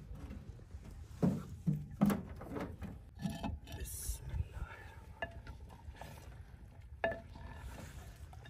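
A few sharp knocks and clinks, the loudest about one and two seconds in, as firewood is pushed into a small stove and a clay lid and wooden ladle are handled against a clay cooking pot.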